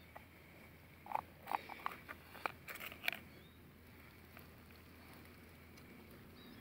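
Several sharp plastic clicks and short rustles between about one and three seconds in, from the snap-on lid of a small plastic food tub being pulled off and set down on dry leaves.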